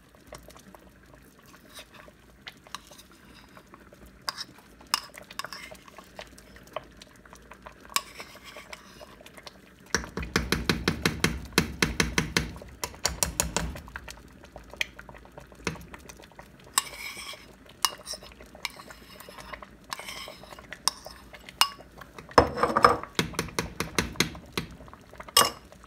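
Metal spoon clinking and scraping against a bowl and a cooking pot as soft ghee is spooned into a pot of carrot pudding. Scattered single clinks, with runs of quick taps about ten seconds in and again near the end.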